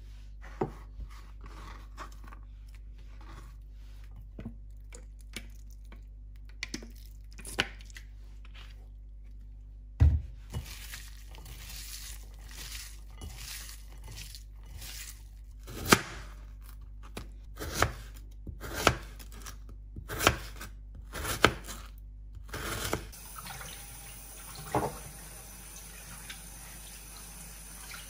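Kitchen food-preparation sounds: scattered light knocks and clicks of utensils and dishes, a sharper thump about ten seconds in, and a run of louder knocks later on. A steady hiss sets in near the end.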